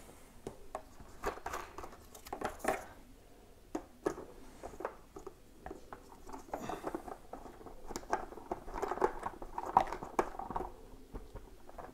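Handling noises from fitting a pressure kit onto a plastic fermenter lid: irregular plastic clicks and rubbing as silicone hose is slid onto its fitting and the plastic disconnect is worked into place, busiest near the end.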